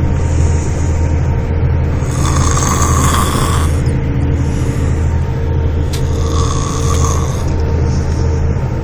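A man snoring loudly in his sleep, a rasping snore coming about every three and a half to four seconds, over a steady low hum.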